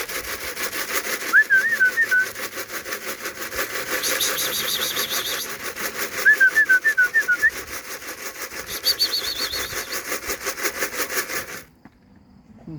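Fast, steady rhythmic rattle of grain being shaken in a feed can to call racing pigeons down to the loft, broken twice by short warbling whistles. The rattle stops abruptly near the end.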